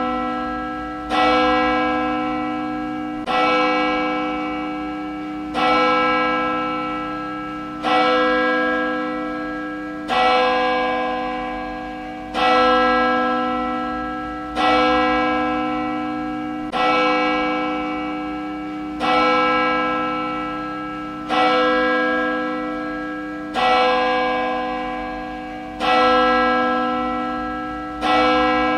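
A single church bell tolling slowly and evenly, struck about once every two and a quarter seconds at the same pitch each time. Each strike rings on and is still sounding when the next one lands.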